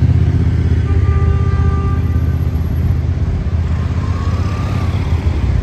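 Dense city street traffic: car and motorbike engines running as they pass, with a steady low rumble.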